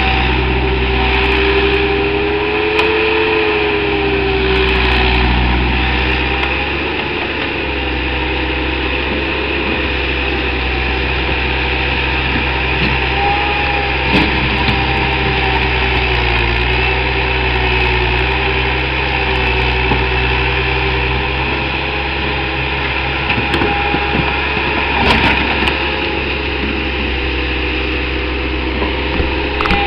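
Bobcat 864 compact track loader's turbo diesel engine running steadily, with a whine that bends in pitch now and then as the machine works. A few sharp clunks stand out, about halfway through and again near the end.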